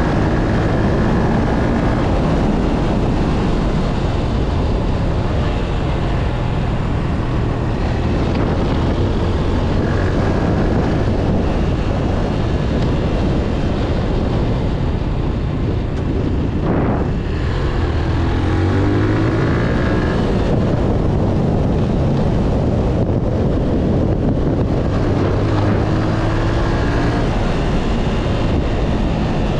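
Motorcycle engine running while riding, under heavy wind noise on a helmet-mounted microphone; the engine note rises and falls a few times as the bike speeds up and eases off.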